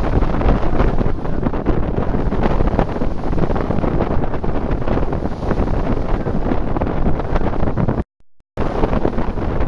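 Wind buffeting the microphone on the deck of a moving cruise boat: a loud, gusty rumble. The sound cuts out completely for about half a second near the end.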